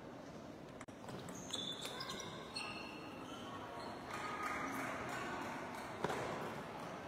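A few sharp clicks of table tennis balls striking tables and bats, the loudest about six seconds in, over the steady background hubbub of a large sports hall.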